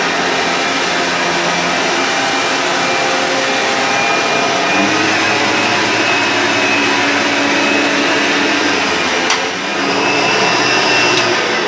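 Hoover Elite II upright vacuum cleaner running steadily on its low setting over thick-pile carpet, its drive belt squeaking a bit because the setting is too low for the pile. About nine seconds in there is a single sharp click and a brief dip in the motor sound.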